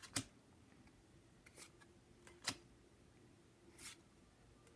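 Pokémon trading cards being handled and flipped: a few short, sharp card clicks and soft slides, with near silence between them.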